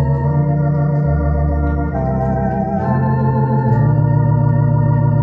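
Yahalom electronic organ playing sustained chords on the manuals with bass notes on the pedalboard, the harmony changing about once a second.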